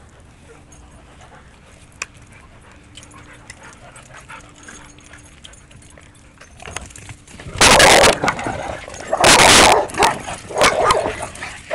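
Dog barking close to the microphone: two very loud barks about a second and a half apart, beginning about eight seconds in, then a few shorter, quieter barks.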